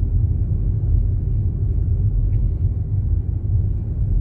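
Steady low rumble of a car driving along a street, engine and tyre noise heard from inside the cabin.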